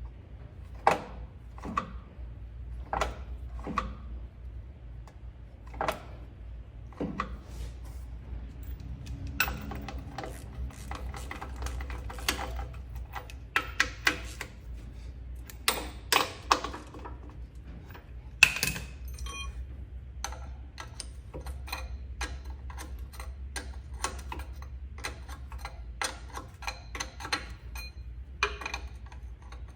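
Hand tools clicking and knocking on metal at uneven intervals, with runs of quick small ticks in the second half, over a steady low hum.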